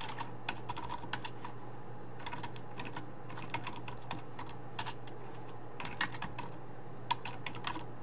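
Typing on a computer keyboard: irregular runs of keystrokes broken by short pauses, over a faint steady low hum.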